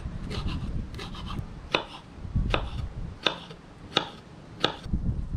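Kitchen knife chopping on a cutting board: a few soft taps, then a regular series of sharp strokes about 0.7 seconds apart, over low rubbing and handling noise.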